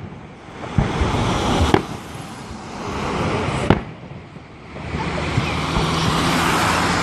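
Fireworks salute: shells bursting in sharp bangs about a second in, near two seconds and near four seconds, with a hissing, crackling wash between them that swells again near the end.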